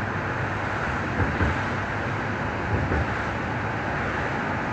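Stuttgart Stadtbahn DT8 light-rail car running at speed, a steady rolling and running noise with a few soft low bumps, heard from inside the passenger compartment.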